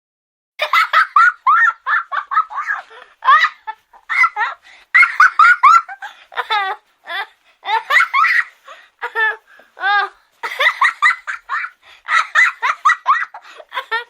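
Young children giggling in quick runs of short, high-pitched bursts, with brief pauses between the runs.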